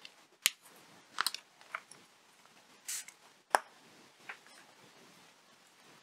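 A few short, sharp clicks and taps from craft tools being handled: a sponge dauber and an ink pad picked up and set down on the table, with a brief rustle about three seconds in. The loudest click comes about three and a half seconds in.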